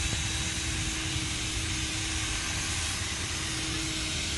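Cordless drill spinning a 3000-grit wet-sanding disc against a wet plastic headlight lens. The motor gives a steady hum under a loud, even hiss of the sanding.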